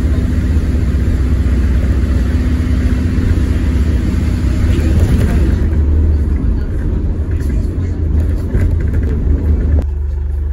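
Interior of an ADL Enviro400H hybrid bus on the move: steady low rumble with a droning tone that eases off about halfway through as the bus slows, with a scatter of clicks, then the noise drops suddenly near the end as the bus comes to a stop.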